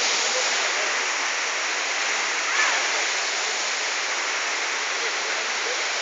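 Waterfall rushing and splashing in a steady, unbroken roar of falling water.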